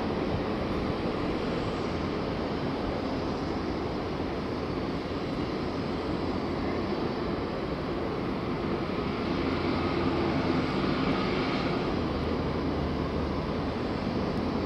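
Airbus A340-300's four CFM56 jet engines heard from afar as the airliner lands and rolls out, a steady rumbling roar that swells slightly about ten seconds in.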